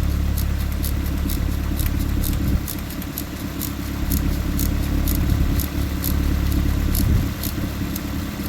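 Toyota engine idling steadily, with irregular light clicks, several a second, as airsoft BBs are fed into the intake manifold through the brake booster vacuum port. The engine note drops briefly about two and a half seconds in.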